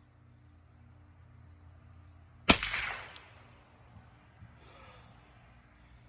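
A single .22 LR rifle shot from a Ruger 10/22 semi-automatic, about two and a half seconds in, its report trailing off over about a second.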